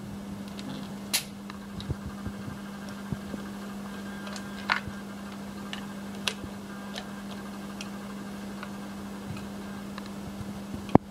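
Light clicks and taps of a compression gauge and its hose being handled and pushed into a spark plug well in a plastic valve cover, over a steady low hum. A sharp click just before the end.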